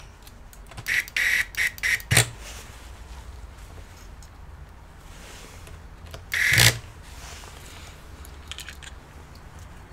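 Gloved hands handling an opened laptop's chassis and motherboard: a quick run of four or five short scrapes ending in a knock about two seconds in, then one more scrape and knock about six and a half seconds in, over a low steady hum.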